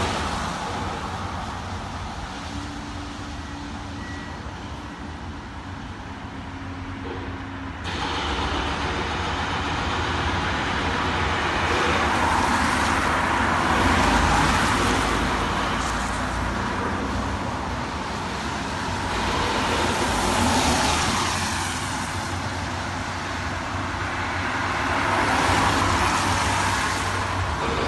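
Construction-site machinery running continuously with a steady low engine rumble. About eight seconds in, a louder, noisier sound cuts in abruptly, then swells and fades every five or six seconds.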